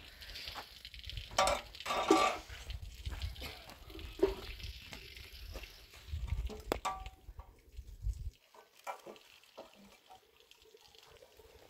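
Wood fire crackling in a small metal fire box while the burning sticks are poked and shifted with tongs, giving scattered sharp knocks and scrapes of wood and metal. A low rumble underneath stops abruptly about eight seconds in.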